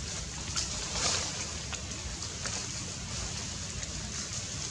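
Outdoor background noise: a steady wind rumble on the microphone under an even hiss, with a few faint ticks.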